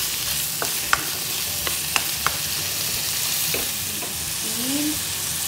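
Whole shrimp sizzling as they sauté with garlic and onion in a nonstick pan, stirred with a spatula that clicks and scrapes against the pan several times in the first couple of seconds.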